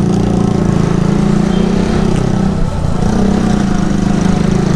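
Motorcycle engine running steadily while riding, its note rising and falling slightly.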